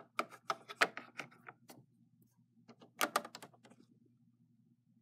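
Quick clicks and taps of hard plastic Littlest Pet Shop figurines being handled and knocked against a plastic toy playset. A flurry of clicks runs through the first two seconds and another comes about three seconds in, over a faint steady hum.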